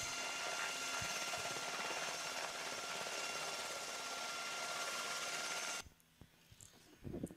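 Steady running noise of helicopter turbine engines and rotors, a dense drone with a high whine. It cuts off abruptly about six seconds in, leaving a quieter background with a few low thumps.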